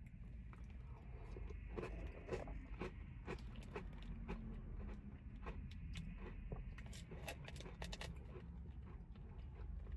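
Close-up chewing of a mouthful of soft serve with crunchy Oreo cookie pieces: irregular crisp crunches and clicks.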